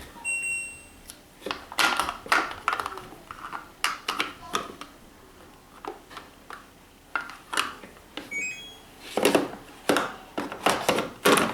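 Plastic washing machine dispenser parts being handled and pushed into place: a string of irregular clicks and knocks. A short high beep sounds near the start, and a brief run of short high tones about eight seconds in.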